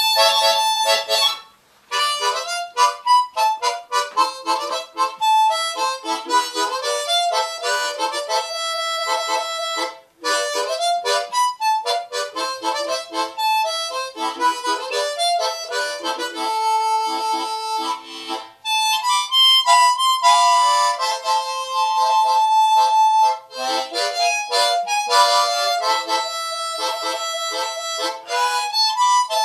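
Solo harmonica playing a melody in quick notes and chords, with two brief breaks, one about two seconds in and one about ten seconds in.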